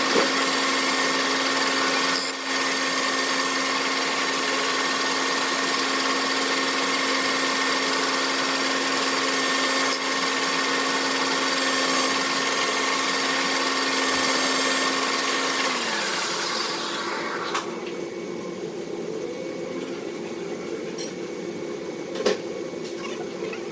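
A metalworking machine tool runs steadily at speed, then is switched off about sixteen seconds in and spins down with falling pitch. After that a lower steady hum and a few light clicks remain.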